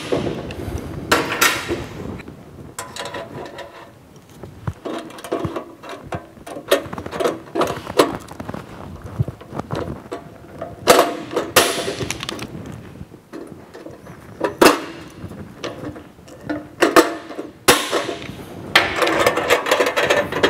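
Hand pop-rivet tool worked stroke by stroke, setting pop rivets through a steel handle bracket into sheet metal, with sharp snaps as the rivet mandrels break off. Between the snaps come clinks and rasps of metal.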